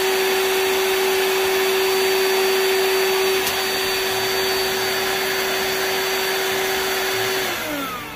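Milwaukee M12 DE cordless dust extractor's vacuum motor running with a steady high whine, then switching off and winding down near the end.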